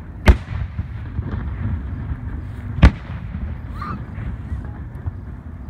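Aerial fireworks shells bursting: two sharp bangs about two and a half seconds apart, over a steady low rumble.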